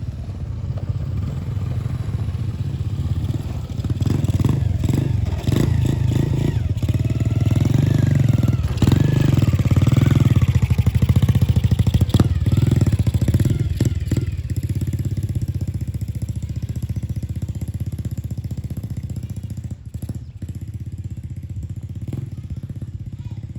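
A small engine running close by, louder in the middle stretch and easing off again toward the end.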